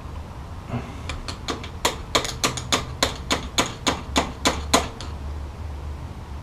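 A quick run of about fourteen sharp taps or knocks, roughly three a second, lasting about four seconds.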